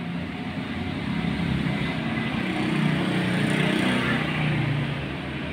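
Engine noise of a passing motor vehicle, swelling to its loudest about three seconds in and then easing a little.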